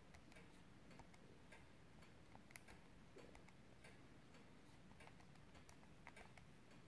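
Faint, irregular clicks of a Casio fx-82 Solar II calculator's keys being pressed one after another.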